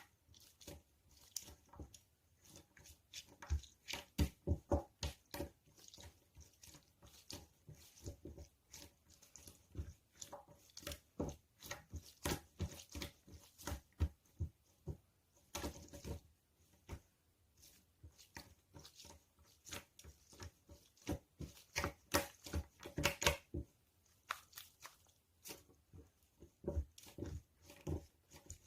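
Soft squishy toys squeezed and kneaded close to the microphone, giving many short, irregular squishes and crackles in clusters.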